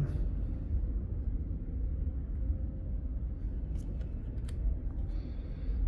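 Steady low background rumble, with a few faint clicks and a soft rustle of trading cards being handled past the middle.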